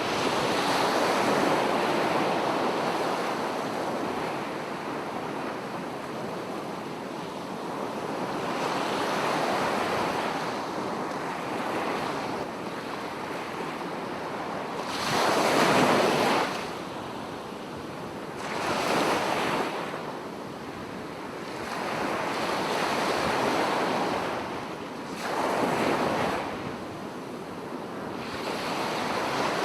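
Small sea waves lapping on a shore, each swell rising and falling every few seconds, with a few sharper, louder wash-ups in the second half.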